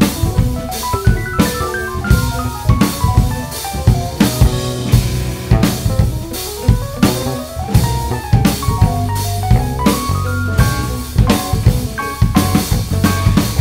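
Instrumental jazz-rock fusion with a busy drum kit: kick drum, snare and rimshots in dense, driving patterns. Fast melodic runs rise and fall over a bass line.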